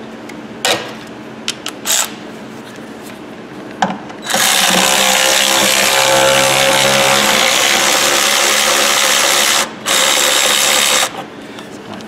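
A handheld power tool runs for about five seconds, stops for a moment, then runs again for about a second, backing out the bolts that hold the fan shroud. A few sharp clicks come before it.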